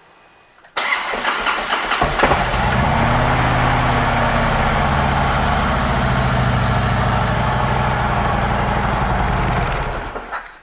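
Harley-Davidson Ultra Classic's V-twin turned over by the electric starter about a second in and catching after about a second. It then idles steadily and is shut off near the end.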